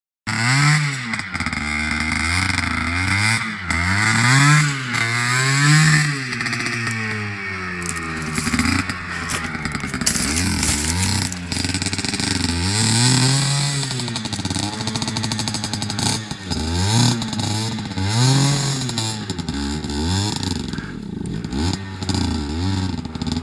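Dirt bike engine revving up and down again and again, in bursts of throttle every second or two, as the bike labours up a steep, rutted hill climb.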